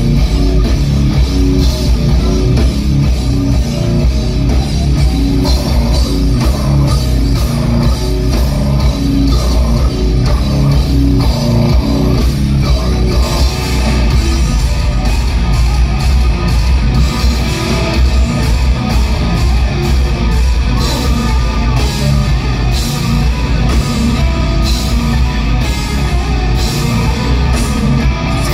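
Deathcore band playing live, heard loud from the crowd: distorted electric guitars and bass over a pounding drum kit.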